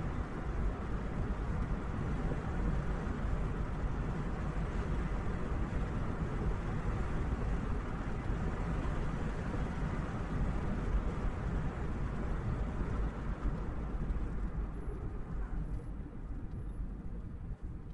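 Steady road and engine noise heard inside an SUV's cabin while driving, a low rumble of tyres and engine. It grows quieter over the last few seconds.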